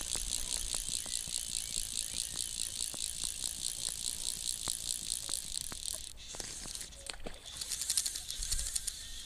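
Fly reel's click-and-pawl ratchet buzzing in a fast, even run of clicks as a hooked fish pulls line off on a light 5-weight rod. The buzz stops about six seconds in and starts again about a second and a half later, as the fish runs again.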